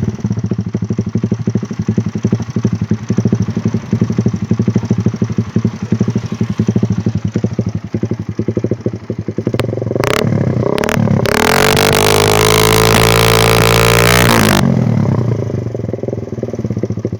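Suzuki Satria FU's single-cylinder engine running through a DOS racing exhaust. It idles with a rapid, uneven popping beat, is blipped twice about ten seconds in, then is revved hard for about three seconds before dropping back to idle. The owner says the engine is in poor condition.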